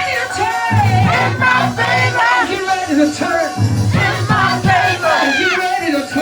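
Loud live gospel praise music: a bass line pulsing under singing voices.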